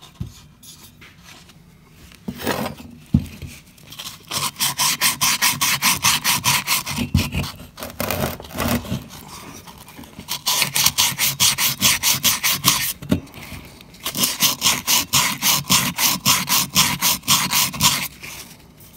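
Worn 80-grit sandpaper rubbed by hand inside the bore of a Jonsered 625 chainsaw cylinder, in quick scratchy back-and-forth strokes that come in three spells with short pauses between. It is scouring aluminum transfer off the cylinder wall. A single sharp knock sounds about three seconds in.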